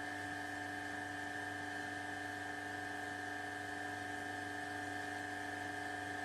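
Flake ice machine running: a steady mechanical whine over a low hum, unchanging throughout.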